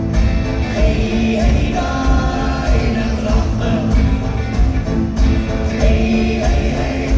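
Live rock band playing a song with vocals over guitars, bass and drums, heard from the audience in a large hall.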